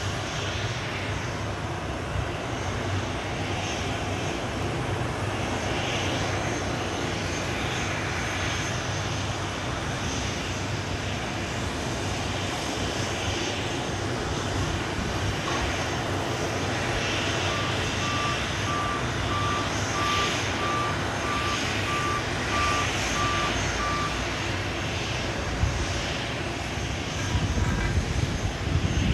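Boeing 737 jet engines running at a steady low power, with a constant low hum. For several seconds past the middle, a string of short, evenly spaced beeps sounds over it.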